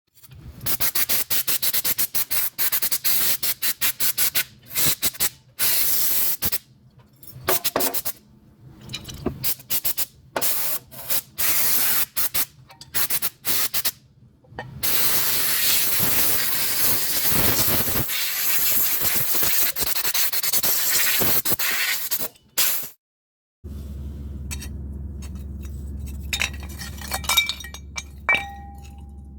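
Hissing spray in many short bursts, then one long blast of about eight seconds. After a short break, a steady low hum with a few light metal clinks near the end.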